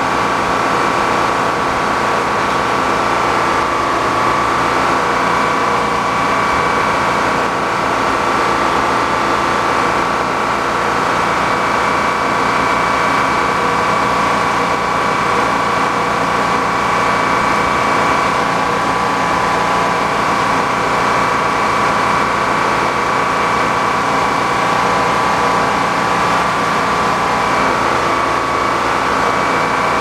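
Old circular sawmill running steadily with no log in the cut: a constant machine drone with a steady high whine on top.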